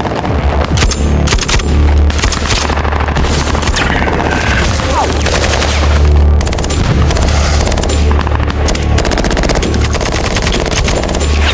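Dense automatic gunfire, many rifles and machine guns firing rapid bursts at once, over a steady deep low rumble.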